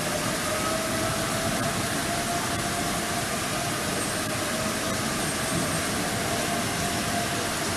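A steady rushing noise, with the faint, level tone of a distant tornado warning siren fading away in the first two seconds.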